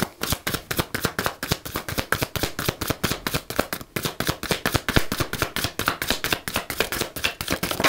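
A deck of tarot cards being shuffled by hand from one hand into the other: a quick, even patter of card slaps, several a second, that stops right at the end.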